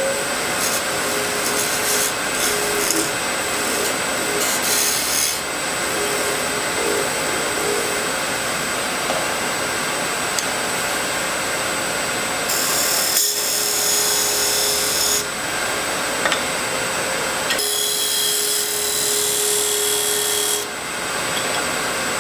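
Wood lathe spinning a piece of pink ivory while a steel parting tool, held flat as a scraper, scrapes and cuts it: a steady hiss of cutting over the lathe's steady whine. The cut turns harsher and brighter twice, for about three seconds each, about twelve and seventeen seconds in.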